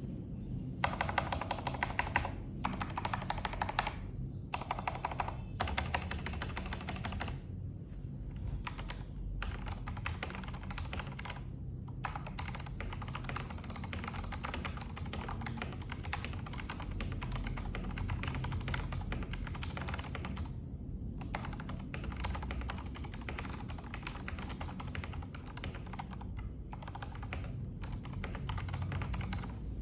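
Typing on a plateless NCR-80 mechanical keyboard with Jwick Black linear switches, C64 keycaps and a full foam mod: a rapid stream of keystroke clacks. Over the first seven seconds or so it comes in louder runs with short pauses between them, then it settles into steady continuous typing.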